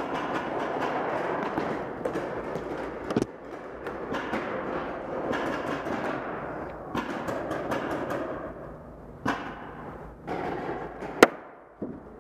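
Paintball markers firing in quick pops and paintballs smacking against hard surfaces, over a steady rush of movement and handling noise from a heavy riot shield carried at a run. The sharpest crack comes about eleven seconds in, with other hard knocks near three and nine seconds.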